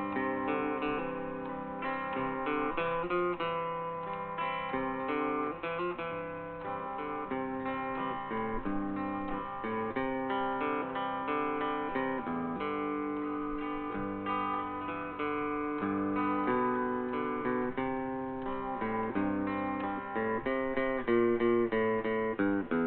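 Acoustic guitar picking a melody line, an instrumental break in a slow country ballad, with no singing.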